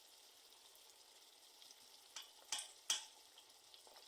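Grated meat and freshly added carrots sizzling faintly in a frying pan, with three sharp clicks about two to three seconds in.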